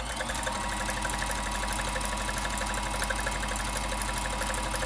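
Vintage Janome Combi DX 502 sewing machine running steadily at speed, its needle stitching in a fast, even rhythm while sewing one side of a multi-step buttonhole.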